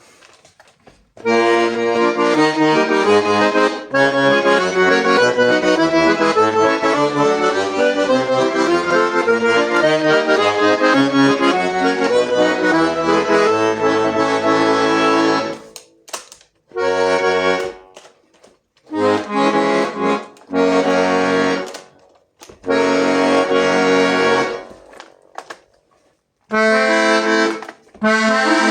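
Hohner Morino Artiste IIID accordion being played. For about fourteen seconds it plays a continuous tune over low bass notes, then it sounds about five separate held chords, each a second or two long, with short pauses between them.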